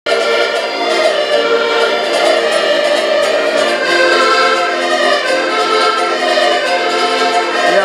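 Ensemble of button accordions playing a tune in sustained chords, with a small stringed instrument strummed along.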